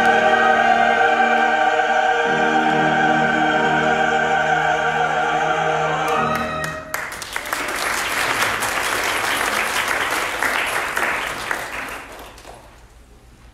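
A church choir and small instrumental ensemble hold a long closing chord that ends about seven seconds in. The congregation then applauds for about five seconds, the clapping dying away near the end.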